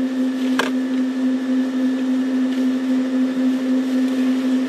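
A steady, even-pitched mechanical hum, with one sharp click about half a second in.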